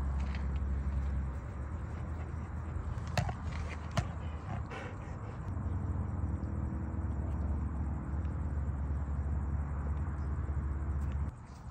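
A steady low hum, with two short clicks about three and four seconds in; it cuts off abruptly near the end.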